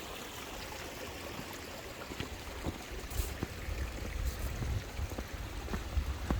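Storm runoff streaming and trickling over eroded ground, with an irregular low rumble joining from about halfway through.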